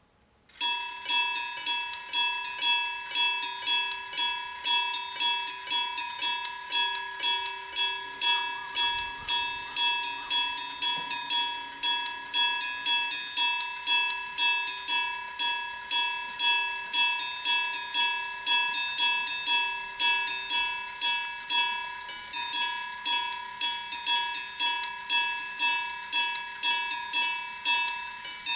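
Electric bell (denrei) of a railway level crossing starting to ring about half a second in, its hammer striking the gong in a rapid, steady train of strokes, each with a bright ring, warning that a train is approaching.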